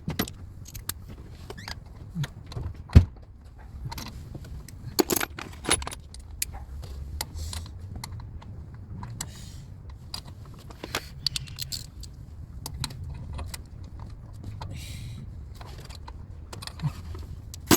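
Metal hand tools clinking and clicking against bolts and the turbo bracket while 13 mm bolts are worked loose, with one sharper metallic knock about three seconds in and a few brief scrapes.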